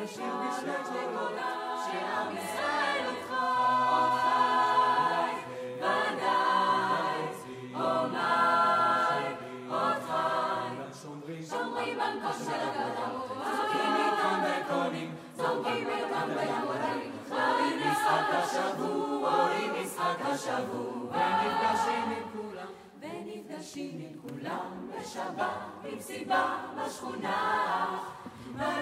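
Mixed choir of young men's and women's voices singing a cappella.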